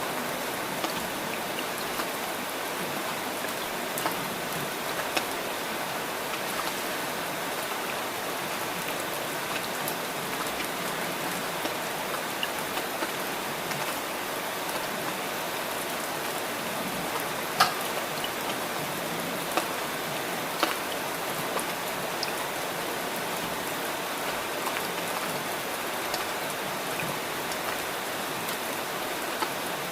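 Steady rain falling: an even hiss with scattered sharp taps of single drops, one stronger tap a little past halfway.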